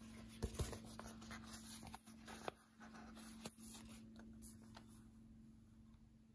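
Faint paper handling: fingers peeling a sticker and rubbing and pressing it down onto a planner page, with a few light ticks and rustles.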